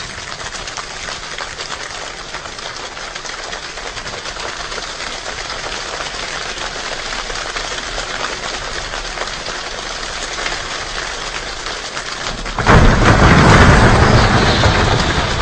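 A large choir imitating a rainstorm with body percussion: a dense crackling patter like steady rain, then about twelve and a half seconds in a sudden loud rumble of feet stomping on the stage floor as thunder, easing off near the end.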